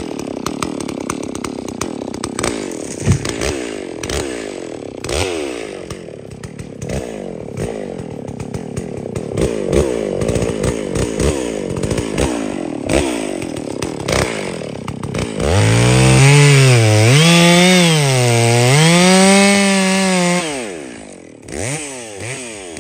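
Petrol chainsaws cutting wood, engine revs rising and falling under load, with scattered knocks and cracks. About sixteen seconds in, a much louder pitched drone rises and falls twice over about five seconds, then fades away.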